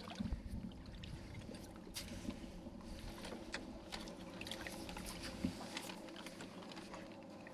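Faint water lapping and trickling against an aluminium boat hull, with a few light clicks and knocks.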